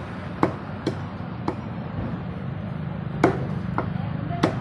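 Meat cleaver chopping chicken pieces on a wooden chopping block: three sharp chops about half a second apart, a pause of more than a second, then three more. A steady low hum runs underneath.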